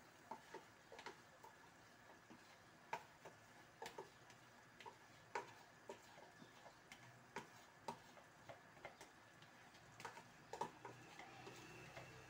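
A spoon scraping and tapping against the inside of a plastic tub and the rim of a stainless pan as thick coconut cream is scooped out. It comes as a run of irregular light clicks and knocks, roughly one or two a second.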